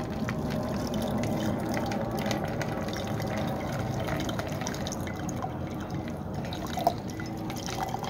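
Dark liquid running into a glass mason jar, splashing and trickling as the jar fills.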